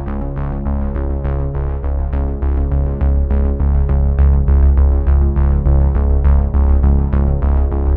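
Electronic background music: sustained synthesizer chords over a deep bass, with a quick steady beat.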